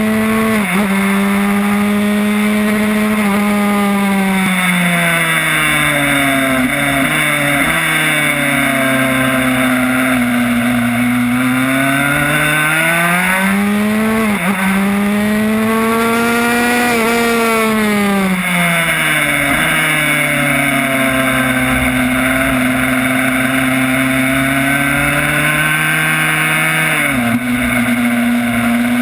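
Yamaha YZ85 two-stroke single-cylinder engine in a Honda RS125 race bike, heard onboard at speed. Its note rises and falls repeatedly as it accelerates and backs off for corners, with a few sudden drops in pitch at gear changes, the clearest near the end.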